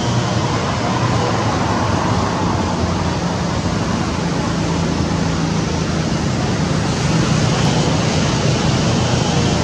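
Steady loud rushing noise with a low hum underneath, unbroken throughout.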